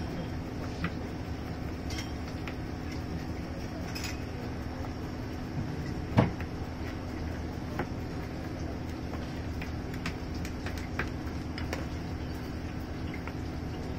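Room tone in a small izakaya: a steady hum with scattered light clicks, and one louder knock about six seconds in.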